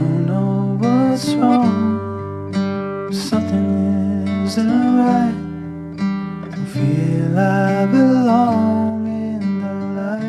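Background music: an acoustic guitar song between its sung lines, carried by a wavering melody line in phrases of a few seconds.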